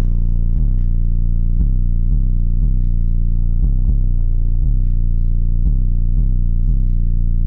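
Bass-heavy music with a steady beat, about two beats a second.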